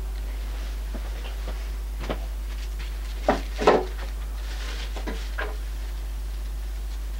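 A few scattered short knocks and taps, the loudest pair just past the middle, over a steady low hum.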